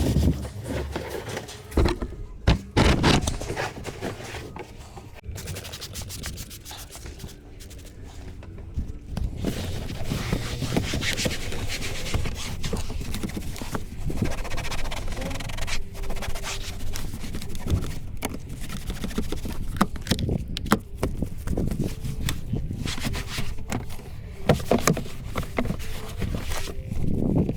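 Irregular rubbing and scraping strokes of hand scrubbing on a car's surfaces during detailing.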